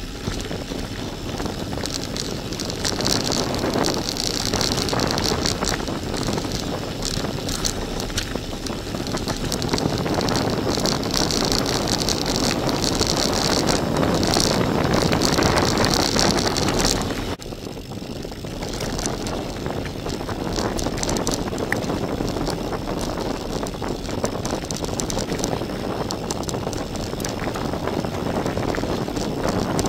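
Gravel bike tyres rolling fast over a loose, stony gravel track, a steady crunching rumble with constant small rattles from the bike. A high hiss over it cuts off abruptly just past halfway, and the sound drops a little there.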